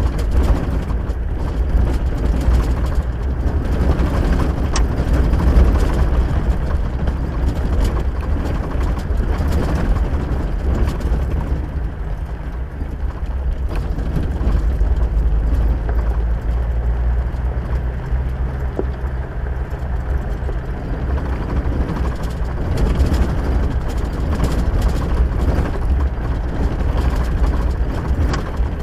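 Vehicle driving on a dirt road off-road: a steady rumble of engine and tyres on the rough surface, easing slightly about twelve seconds in.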